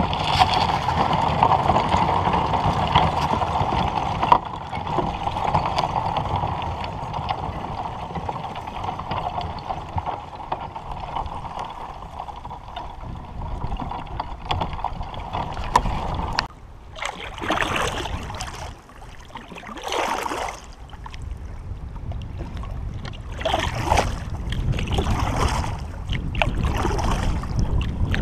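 Kayak hull pushing through floating broken-up spring lake ice: a steady crackling hiss of ice fragments against the hull. About halfway through it gives way to separate splashes a second or two apart as the kayak moves into thinner ice and open water.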